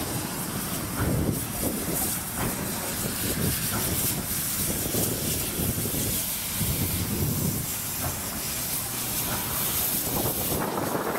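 A steam locomotive moving off slowly under steam, with hissing steam and slow, uneven exhaust beats roughly a second apart.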